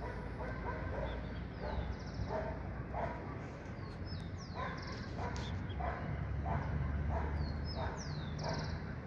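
A dog barking repeatedly, about a dozen short barks spaced roughly half a second to a second apart, over a steady low rumble.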